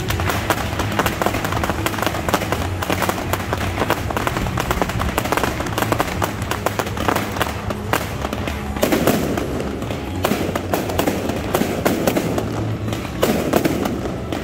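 Dense, rapid crackling pops over background music.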